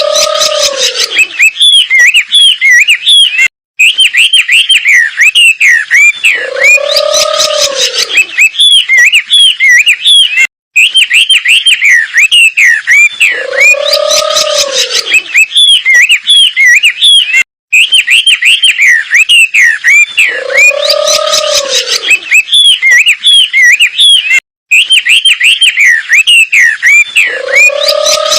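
Looped recording of a wambi bird singing rapid, varied whistled notes mixed with a low arching note. The same phrase repeats about every seven seconds, with a brief break between repeats.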